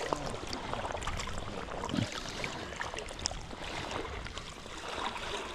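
River water running and rippling, with scattered small splashes and clicks.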